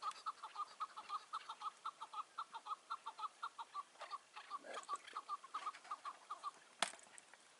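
Chukar partridge calling, a fast even run of short clucking notes, about six a second, that stops about six and a half seconds in. A single sharp click follows shortly after.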